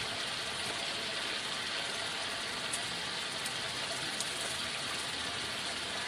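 Steady outdoor background hiss with a few faint ticks.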